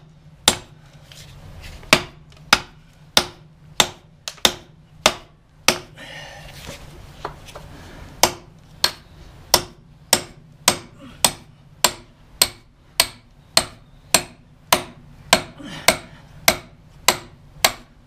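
Hammer beating on a steel drift to drive a pin out of a Kubota backhoe: sharp metal-on-metal blows at a steady pace of nearly two a second, with a short pause about six seconds in.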